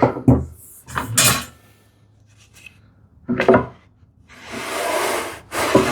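Wooden workpieces handled on the workbench: a few short knocks, then one long scraping rub of wood lasting about a second.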